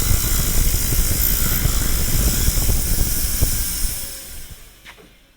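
Powered wire wheel running, brushing rust off a steel fork part with a dense grinding hiss that fades away over the last second or so.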